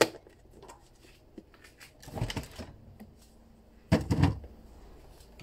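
Kitchen handling sounds: a sharp click at the start, then two short bouts of knocking and clattering of utensils or containers, about two and four seconds in, the second louder.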